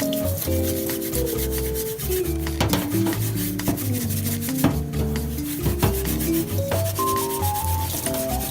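Background music, a melody of changing notes over a bass line, with rubbing, scraping sounds mixed in, like sanding or filing.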